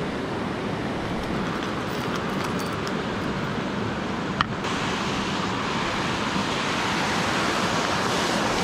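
Steady rush of a river's flowing water, brightening a little about halfway through, with one short click just before.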